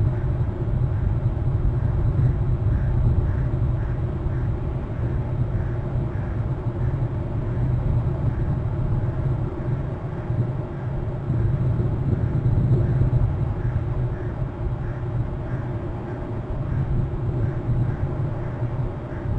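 Steady low rumble of wind buffeting an outdoor webcam microphone, rising and falling a little in strength.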